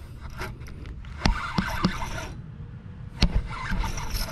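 Low wind rumble and scraping handling noise from an angler fighting a hooked fish on a rod and reel, with two sharp knocks, about a second in and again about three seconds in.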